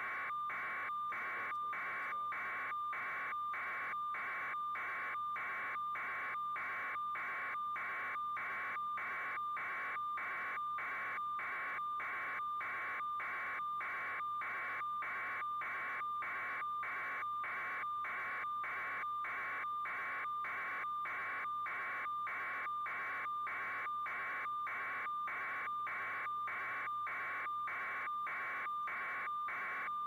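Electronic hiss with a steady single tone inside it, switching on and off in an even rhythm about twice a second, like a signal or transmission noise rather than a natural sound.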